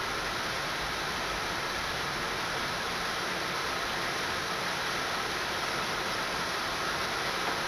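Steady rain falling, an even hiss with no thunder or other sudden sounds.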